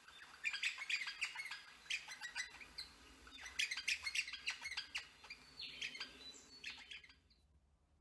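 Crimson rosellas chattering: a run of short, high chirps and squawks that stops suddenly near the end.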